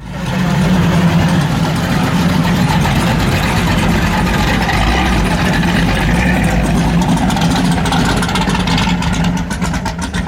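A muscle car's V8 engine idling steadily, its beat turning choppier near the end.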